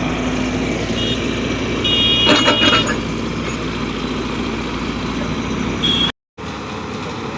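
Excavator engine running steadily while digging a foundation, with a loud burst of metallic clanking and squealing about two and a half seconds in. The sound cuts out for a moment near the end.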